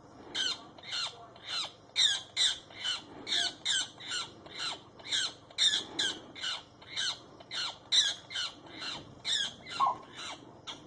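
A bird giving a rapid series of shrill cries, each sliding down in pitch, about two to three a second without a break.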